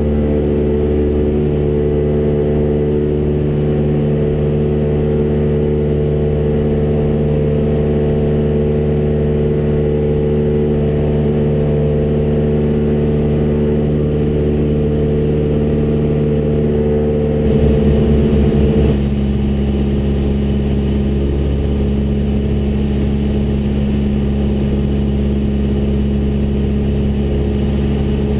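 Cessna 172R's four-cylinder Lycoming engine and propeller running at takeoff power through the takeoff roll and climb-out, heard from inside the cockpit as a steady, loud engine hum. About two-thirds of the way through it briefly gets louder and pulses, then settles into a steady, slightly different tone.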